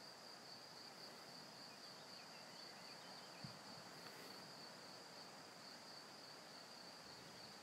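Near silence with a faint, steady, high-pitched trill of crickets, and one soft tap about three and a half seconds in.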